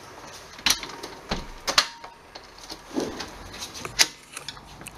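A series of about six sharp clicks and knocks as a door's catch is worked and the door pushed open, the loudest just under two seconds in and about four seconds in.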